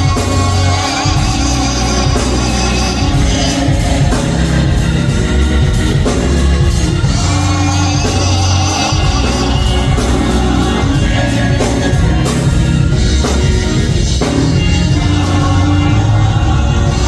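Band music with drums, bass and evenly repeated cymbal strokes, playing steadily.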